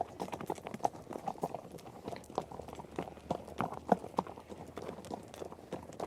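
Horse hoofbeats at a run: quick, uneven hoof strikes on the ground, several a second.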